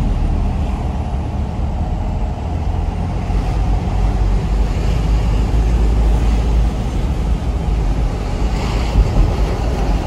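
Inside the cabin of a moving minibus: a steady low engine drone with tyre and road rumble.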